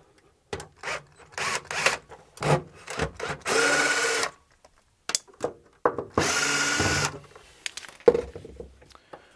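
Cordless drill-driver backing screws out of a sheet-metal plate. It runs in several short bursts and two longer whirs of about a second each, with small clicks and knocks between.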